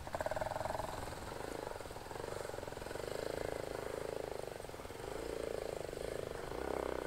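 A vehicle's engine working as it climbs a steep off-road slope, its sound swelling and easing off twice.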